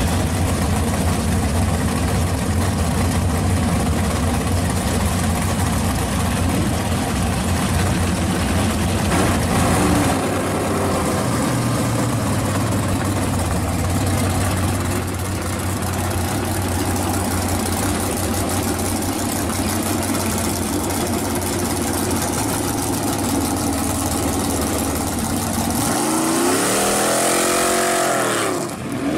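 V8 engine of a Chevy Vega wagon drag car running steadily as the car rolls forward, then revved up and down near the end, the pitch rising and falling.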